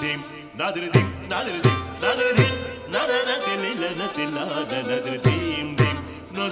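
Carnatic classical music, a thillana: a male vocalist singing with violin accompaniment, and a mridangam sounding a few deep strokes that slide down in pitch.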